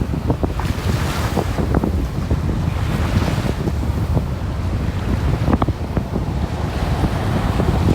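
Wind buffeting the microphone with a constant low rumble, over surf washing in with a swelling hiss a few times, with short crackles scattered throughout.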